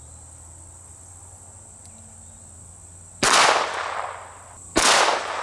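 Two shots from a Ruger LCR .22 Long Rifle revolver, about a second and a half apart, each sharp crack trailing off in an echo, with crickets chirping steadily underneath.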